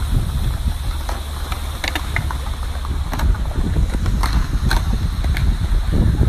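Wind buffeting a phone microphone outdoors, a loud low rumble, with a few sharp clicks or knocks scattered through the middle.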